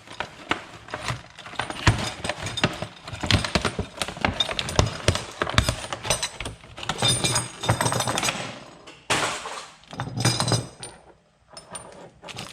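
A motorcycle hand guard kit being unpacked: the packaging rustles and tears while small metal mounting parts clink and knock together.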